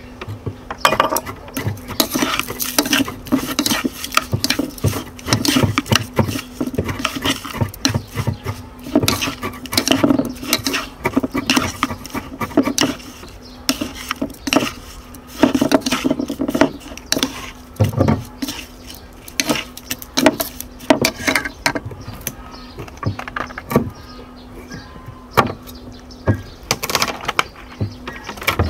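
A metal spoon and chopsticks clink and scrape against a ceramic bowl as raw pork is stirred with its seasonings, in irregular taps and clatters. A steady low hum runs underneath.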